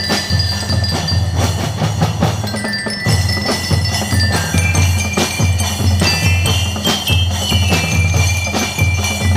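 Drum and lyre corps playing a tune: bell lyres struck with mallets ring out the melody over a steady marching beat of bass and snare drums.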